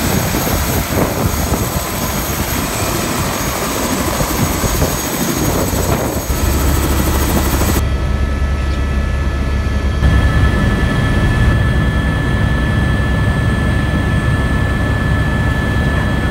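Helicopter running loud and steady, with a high whine over the rush of the rotor. After about eight seconds it changes to a deeper steady drone as heard inside the cabin in flight.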